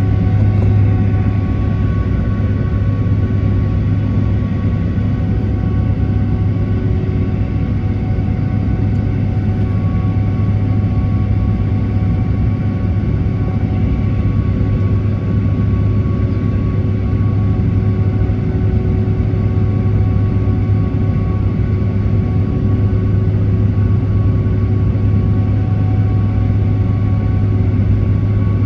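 Steady cabin drone inside a Boeing 767-300ER: engines idling with a constant low hum and several steady whining tones, holding level without any spool-up.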